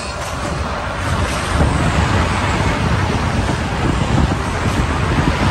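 Rushing wind and a deep rumble from the flight simulator's soundtrack, simulating a banshee's flight, growing louder about a second and a half in.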